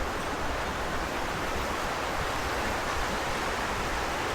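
River water rushing steadily over a small fall, a constant even rush.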